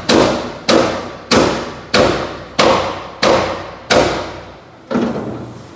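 Hand hammer striking the steel plate of a dump truck bed: eight ringing metal blows about every 0.6 seconds, the last one after a slightly longer pause.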